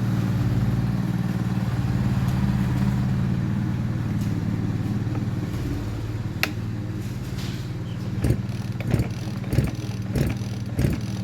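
Chinese MS360-clone chainsaw being cranked on its pull-starter without catching, with a sharp knock about every 0.6 s from about two-thirds of the way in. Its owner takes this for an ignition timing problem. A steady low engine hum runs underneath.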